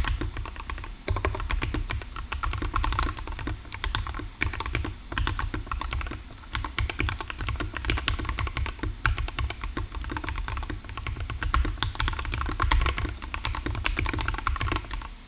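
Fast, continuous typing on a custom mechanical keyboard: a top-mount Rama Zambumon with a brass plate, stock factory-lubed Banana Split linear switches and PBT keycaps. It makes a dense, unbroken run of key clacks, at about 87 words per minute.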